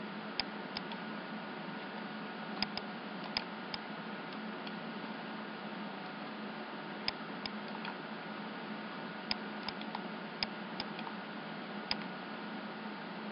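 Computer mouse clicking every second or so, some as quick double clicks, over a steady background hiss and faint hum.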